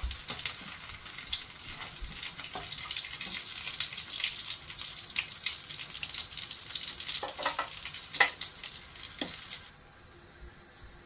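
Masoor dal kababs shallow-frying in hot oil in a nonstick pan: a steady crackling sizzle, with a few sharper clicks and scrapes of a spatula against the pan as kababs are lifted out. Near the end the sizzle drops abruptly to a faint hiss.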